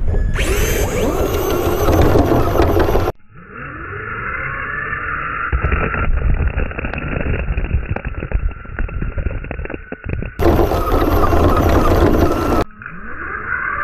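Electric motors of Traxxas Stampede RC monster trucks whining as the trucks accelerate, with tyres churning and spraying snow. The sound changes abruptly several times, between a muffled whine that rises in pitch and a fuller, noisier rush.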